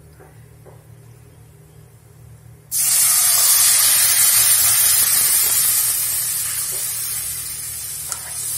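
Milk poured into a hot kadhai of ghee-roasted vermicelli, hissing and sizzling loudly as it hits the hot fat. The hiss starts suddenly about three seconds in and slowly fades.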